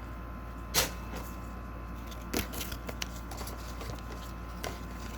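A few brief rustles and taps of a Pokémon card box and its packaging being handled, the loudest just under a second in, over a steady low hum.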